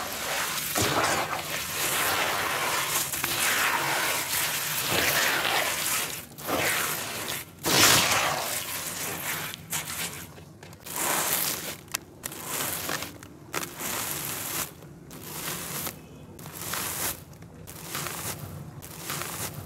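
Hands crumbling and squishing grainy red dirt clay in a plastic tub, a dense gritty crunching mixed with wet squelches. From about halfway it breaks into separate short gritty bursts as crumbled clay falls from the hands.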